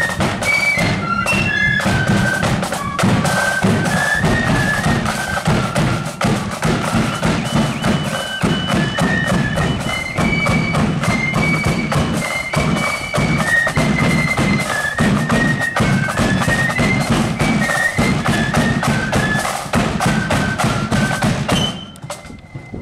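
A marching flute band playing a tune in unison: a high flute melody over drums beating a steady march rhythm. The music breaks off about a second before the end.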